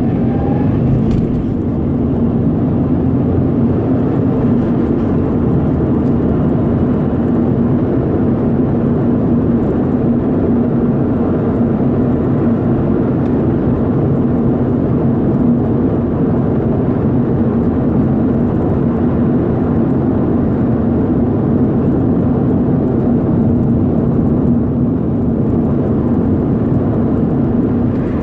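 Stock 2011 Subaru WRX's turbocharged 2.5-litre flat-four running steadily: a constant low hum with no revving.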